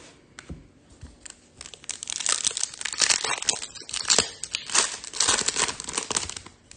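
Plastic trading-card pack wrapper crinkling as it is handled: a few light clicks, then a dense run of crackling from about a second and a half in until just before the end.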